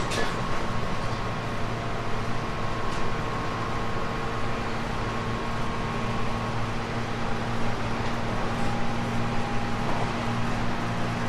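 JR 719 series electric multiple unit running along the line: a steady rumble of wheels on rail with a constant low hum and a fainter higher whine from the running gear. A single sharp click comes right at the start.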